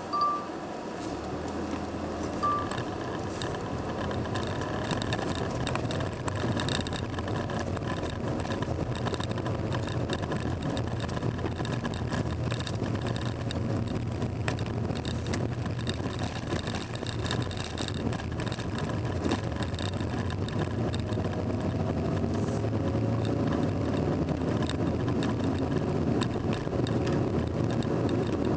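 Car interior while driving slowly: a steady engine hum and tyre and road noise heard through the cabin, the engine note rising and falling gently with speed. Two short high beeps in the first few seconds.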